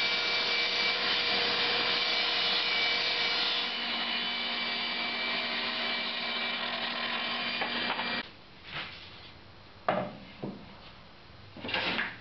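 Table saw running and ripping a 16 mm MDF sheet, a steady dense whine that cuts off abruptly about eight seconds in. A few separate knocks follow as the cut MDF pieces are handled.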